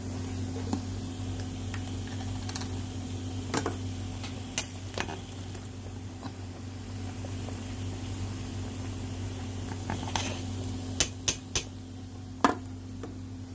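Large stainless steel stockpot of seafood boil bubbling on an electric stove, over a steady low hum. A dozen or so sharp clicks and knocks are scattered through it, three or four close together near the end.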